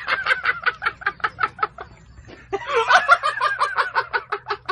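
Chicken clucking: a rapid run of short clucks, about five or six a second, swelling into a louder, fuller cackle a little past the middle.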